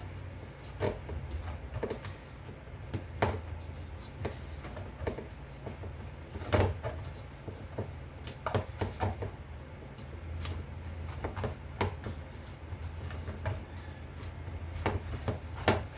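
Dumpling dough of flour and cornmeal being kneaded by hand in a bowl: irregular soft knocks and thuds at uneven intervals, over a steady low hum.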